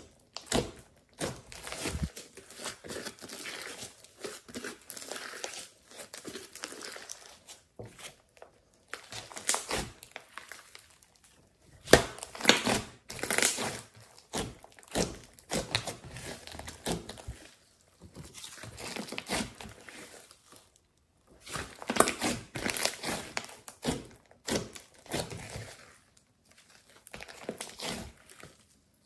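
Hands kneading, squeezing and stretching a large mass of clay-mixed slime: bursts of wet squelching and crackling with short pauses between squeezes.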